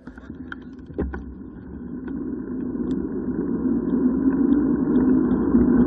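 Wind rushing over the camera microphone and tyre noise from a bicycle descending on asphalt, growing steadily louder as it gathers speed downhill. A few sharp clicks about a second in.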